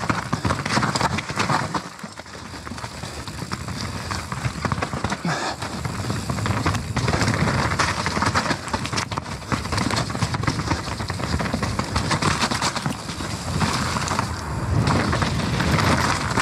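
Nukeproof Mega full-suspension mountain bike riding down a wet, rough trail: a continuous noisy clatter of tyres over dirt and rocks, with many sharp knocks and rattles from the chain and frame.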